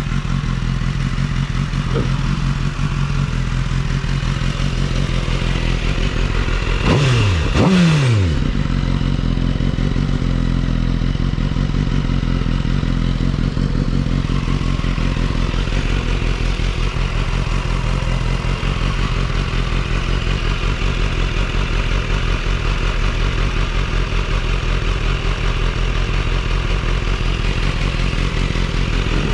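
Sportbike engine idling steadily, with two quick blips of the revs about seven seconds in that fall back to idle.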